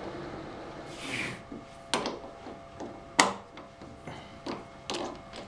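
A few sharp clicks and knocks of metal tools being handled at a milling machine, with a short hiss about a second in and a faint steady hum underneath.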